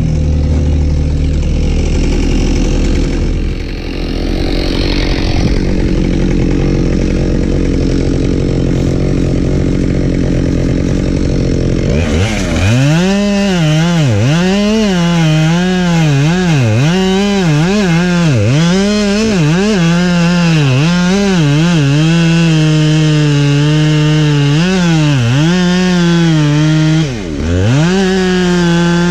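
For about the first twelve seconds an engine runs steadily. Then a Husqvarna 572XP two-stroke chainsaw takes over, cutting wood. Its pitch dips and recovers over and over as the chain loads up in the cut, with one deeper drop near the end.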